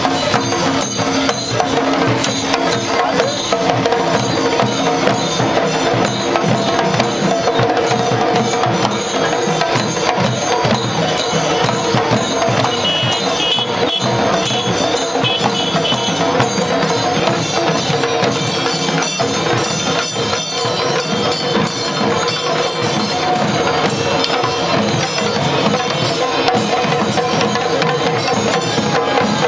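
Chenda drums beaten with sticks in a fast, continuous rhythm, with a steady droning tone underneath.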